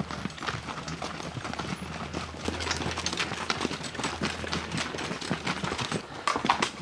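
Hooves of several laden pack mules walking on a stony dirt trail: an irregular run of clopping, scraping steps.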